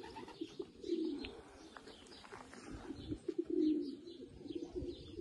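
Racing pigeons cooing, several low coos one after another, with a few short high chirps in between.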